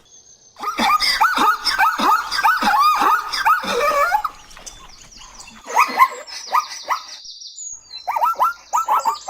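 Zebra calling: a long run of rapid, barking yelps several times a second, a pause with only high bird chirps, then another run of yelps near the end.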